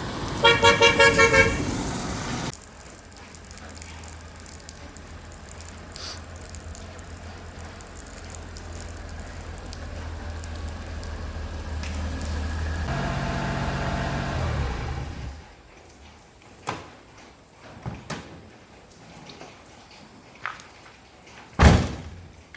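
Car horn giving a quick run of short toots, then a car engine running steadily, swelling slightly before it winds down and stops about fifteen seconds in. A few knocks follow, and one loud thump near the end.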